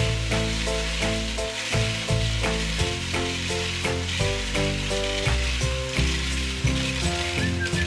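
A stream of small candy-coated chocolates pouring down a Bruder toy cement mixer's plastic chute into a plastic bin, a steady hissing patter, over background music with a quick melody of changing notes.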